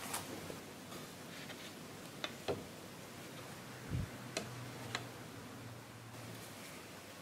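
Sparse light clicks and taps, with a soft thud about four seconds in as a pancake is set down on a plastic plate.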